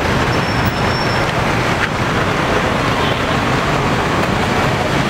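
Busy road traffic: a steady din of cars and minibuses running and passing close by.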